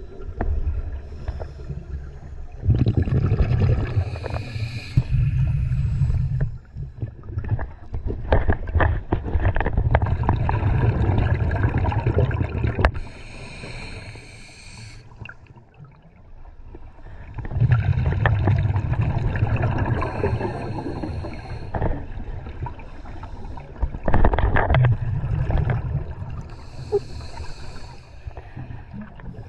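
Scuba diver breathing through a regulator underwater: long spells of exhaled bubbles rumbling and gurgling out of the exhaust valve, alternating with the shorter hiss of inhalation, several breath cycles in a row.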